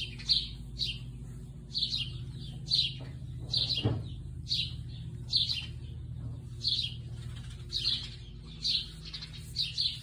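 Small birds chirping repeatedly, short high chirps about once or twice a second, over a steady low hum. A single soft knock about four seconds in.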